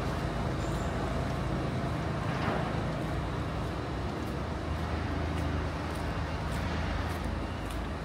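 Steady low rumble of a box lorry's diesel engine running, over city traffic noise.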